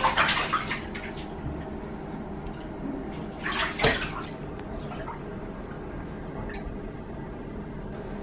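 Water splashing and sloshing in a bathtub as a toddler moves about in it, with a louder cluster of splashes about three and a half to four seconds in.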